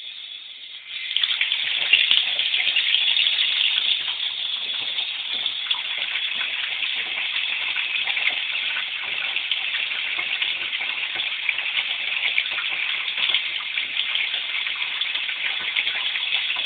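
Water running into a bathtub with a steady gush, rising sharply in level about a second in and staying strong.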